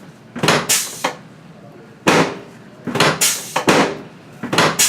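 Drop pieces of a chiropractic drop table dropping under the chiropractor's thrusts during an adjustment: a series of about eight sharp clacks, some in quick pairs.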